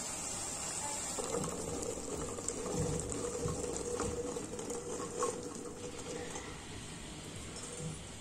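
Boiled broad bean seeds and their cooking water being poured into a pan of curry: a steady pouring and splashing of liquid, with a few light knocks.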